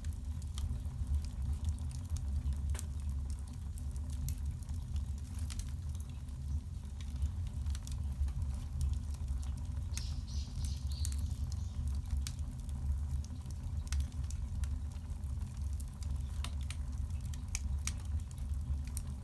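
Firewood burning in the firebox of a wood-fired bath heater: irregular crackles and sharp pops of the burning wood over a steady low rumble, with a brief hiss about ten seconds in.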